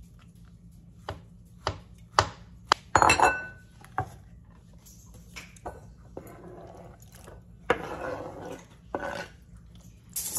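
Kitchen knife chopping soft cooked peaches on a wooden cutting board: irregular knocks of the blade on the board, with a louder clatter about three seconds in. In the second half the blade scrapes the diced fruit across the board.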